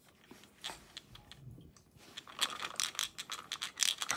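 Small clicks and smacks from a baby being spoon-fed puree, faint at first and coming thick and fast in the second half.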